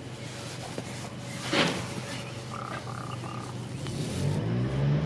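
A common raven gives one short, harsh call about a second and a half in, over the steady hum of construction machinery. A vehicle's reversing alarm beeps three times, then a heavy engine revs up, rising in pitch near the end.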